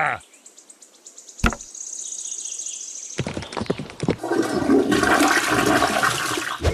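A few faint ticks and one sharp click, then a loud rush of water like a flush starting about three seconds in.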